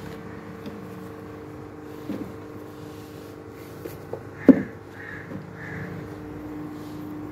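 Books and objects on a bookshelf knocking and shuffling as it is tidied and dusted by hand, with one sharp knock about four and a half seconds in, over a steady hum.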